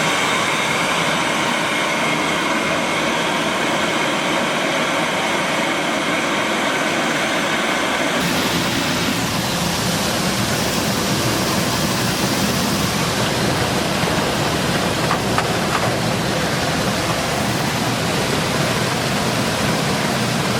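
6FT-C2 corn grits maize milling machine running, a steady, loud mechanical rush. About eight seconds in the sound changes abruptly and becomes deeper and fuller.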